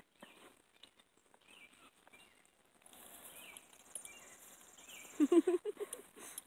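Insects chirring faintly in the grass, a high even hiss from about three seconds in. A little after five seconds comes a short run of four or five loud pulsed vocal sounds.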